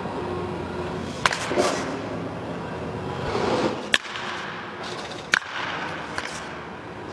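Baseball bat striking balls in an indoor batting cage: three sharp cracks, about a second in, near the middle and a second and a half later, over a steady hum of the practice hall.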